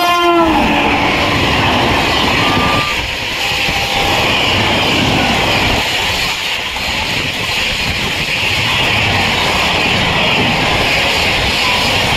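Rajdhani Express passing at high speed: the electric locomotive's horn drops in pitch as it goes by, then the coaches rush past with a loud, steady rumble and hiss of wheels on rail.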